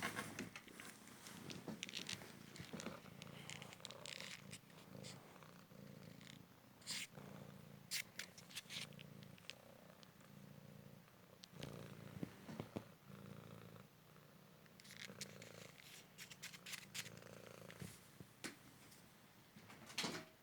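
Cymric cat purring close up: a low rumble that pulses with each breath, with scattered sharp clicks and rustles over it.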